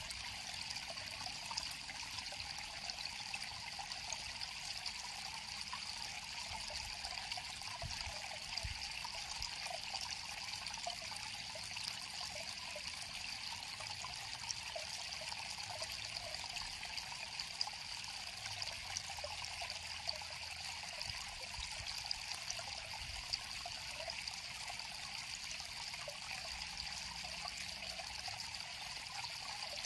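Shallow river water flowing and trickling steadily over stones, with many small splashes and gurgles.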